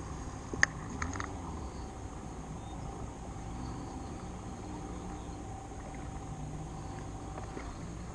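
A few sharp clicks from a baitcasting reel being handled, about half a second and a second in, over a steady low outdoor rumble.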